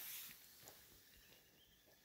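Near silence: faint outdoor ambience with a few soft ticks.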